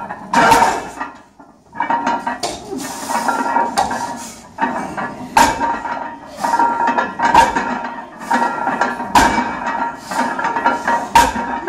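Loaded barbell with iron plates clanking through repeated sumo deadlift reps: a sharp metallic clank of the plates about every second or so, as the bar is lowered to the floor and pulled again.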